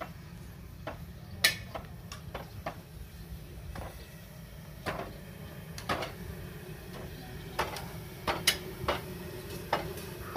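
Long metal spatulas scraping and clanking against large steel woks as food is stirred, irregular sharp knocks over a steady low rumble.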